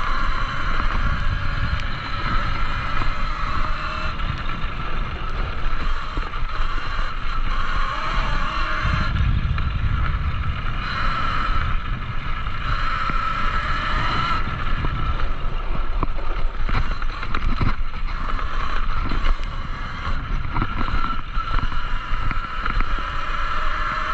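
Talaria Sting electric dirt bike riding a dirt trail: a steady motor whine that rises and falls a little in pitch with the throttle, over the noise of tyres on dirt and gravel, scattered rattles and knocks from bumps, and wind on the microphone.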